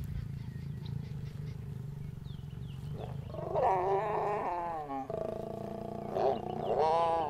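Lioness snarling and growling during mating. A low rumble comes first, then from about three seconds in come long, wavering snarls, with another one rising near the end.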